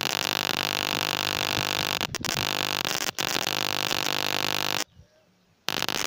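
High-voltage electric arc drawn with a probe from a microwave oven transformer and capacitor: a loud, harsh buzz with a steady hum underneath. It breaks off for an instant twice around two seconds in and once around three, stops near five seconds, and starts again just before the end.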